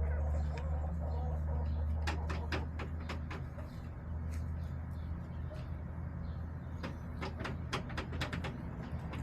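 Backyard chicken coop: two flurries of sharp clicks and taps, about two seconds in and again about seven seconds in, over a steady low hum, with the hens making only faint sounds.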